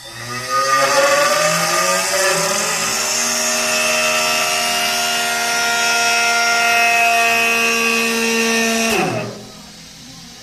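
CNC lathe spindle spinning up with a rising whine, running steadily at speed, then spinning down and stopping about nine seconds in.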